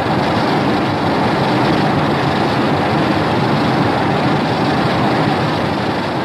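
Homemade Godzilla-style monster roar sound effect: one long, harsh, rasping roar held steady without a clear pitch, beginning to fade near the end.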